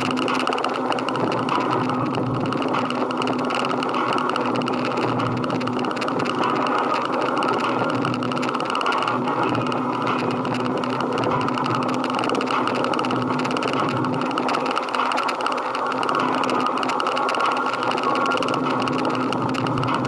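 Motorcycle running steadily under way: an even, unbroken drone with one constant low hum and no rise or fall in engine pitch.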